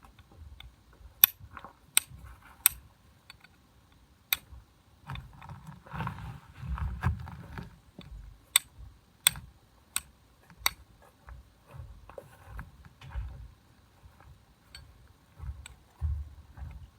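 Flint struck against a fire steel to throw sparks: sharp metallic clicks, three strikes about 0.7 s apart, another a little later, then a run of four more at the same pace near the middle. Rustling and handling noise between the runs of strikes.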